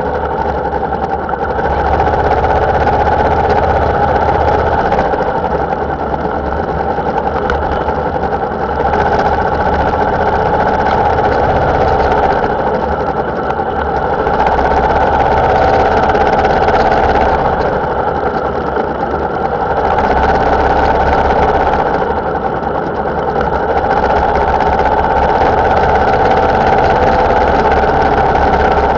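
Motorcycle engine running while under way, a steady loud drone that swells and eases a few times as the ride goes on.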